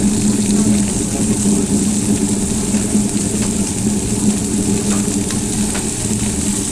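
Food sizzling on a hot flat-top griddle with a steady hiss, over a constant low motor-like hum. A few light clicks, like utensils on the metal, come through now and then.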